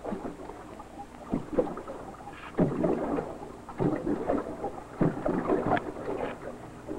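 Choppy water slapping against a fishing boat's hull with wind, in uneven surges about once a second.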